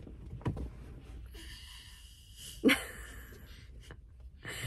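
Faint breathing and short sniff-like breaths close to the microphone, the loudest about two and a half seconds in, over a low steady hum.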